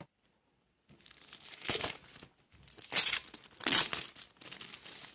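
The plastic wrapper of a children's magazine being torn open and crinkled by hand, in a series of crackling bursts, the loudest about three seconds in.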